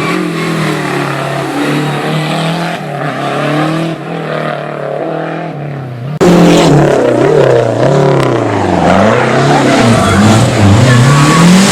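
Historic rally car engines at full attack on a stage, revving high and dropping back with each gear change and lift. About six seconds in the sound switches abruptly to a second, louder and closer car, which keeps revving up and down.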